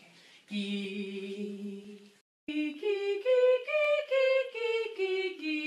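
Woman singing a vocal warm-up exercise on the syllable 'gi', unaccompanied. A held low note is followed by a short break, then short notes step up a scale and back down.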